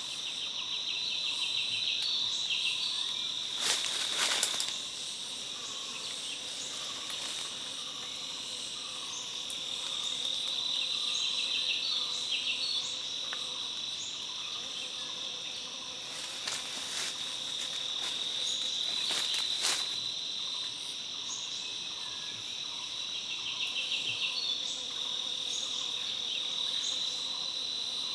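A steady, high-pitched chorus of forest insects, with trills that come and go every several seconds. A few brief sharp knocks or rustles sound over it, once about four seconds in and twice more later on.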